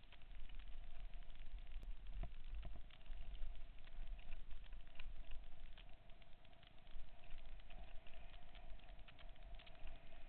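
BMX riding heard from a helmet-mounted camera on a dirt track: a constant low rumble of wind buffeting the microphone, with many small clicks and rattles from the bike and camera over the bumps, and a steady hum underneath.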